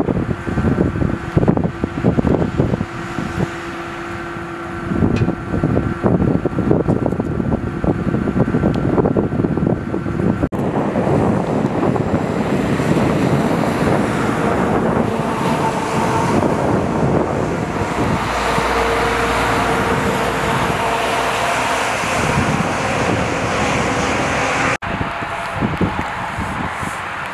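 Vehicle engines running at a crash scene, with wind buffeting the microphone. The sound changes abruptly twice.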